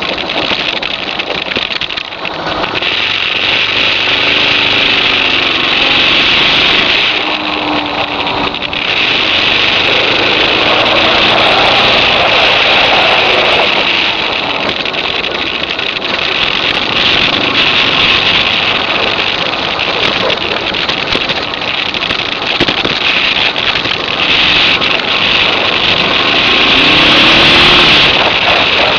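Suzuki DR650's single-cylinder four-stroke engine pulling along a gravel road, its pitch rising several times as it revs up. A loud rushing hiss of wind and gravel road noise sits over it, easing off briefly a few times.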